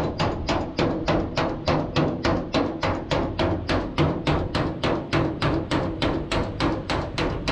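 Rapid, even tapping of a hand tool on a truck cab's sheet-metal panel, about four sharp metallic strikes a second.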